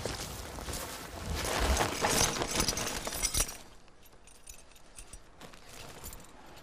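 A woven plastic sack full of steel traps rustling, with the metal traps and wires clinking as it is handled and opened. The rustling and clinking are loudest for the first three seconds or so, then a few lighter clinks follow.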